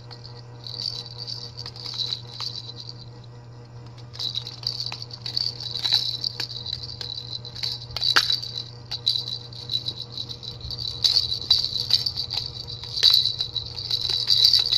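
A baby's plastic rattle toy, with balls inside plastic cages, shaken in bursts of fast rattling, with a short pause about three seconds in.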